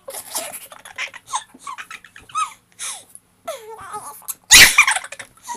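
Young girls' high-pitched voices in short bursts and giggles, with one very loud outcry about four and a half seconds in.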